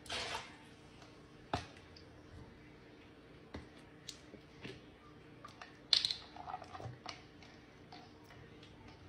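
Scattered clicks, knocks and crackles of a plastic cup and a plastic salad-dressing bottle being handled on a stone counter as the bottle's cap is twisted off, with the loudest crackle about six seconds in.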